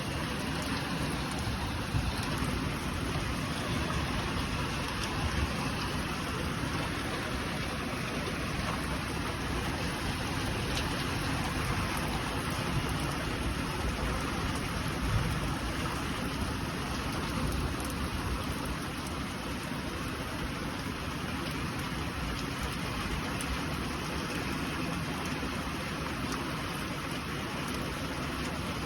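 Heavy rain falling steadily, a dense even hiss with occasional louder patters.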